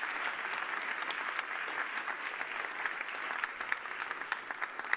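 Audience applauding: dense clapping that gradually thins out toward the end.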